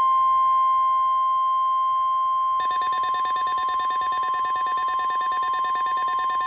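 Emergency alert attention tones. A steady single-pitch alarm tone sounds throughout, and about two and a half seconds in it is joined by a rapid, shrill pulsing beep that repeats several times a second.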